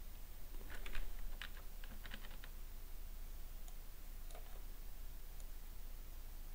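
Computer keyboard keys tapped: a quick run of clicks about a second in, then a few single taps spaced a second or so apart.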